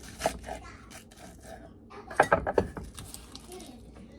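Salad being prepared by hand: scraping and rubbing of food and utensils, with a quick cluster of sharp knocks a little past two seconds in.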